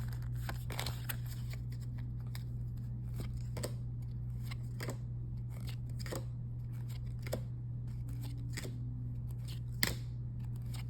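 Pokémon trading cards being slid off the stack one by one, a short sharp snick about once a second, the sharpest near the end, over a steady low hum.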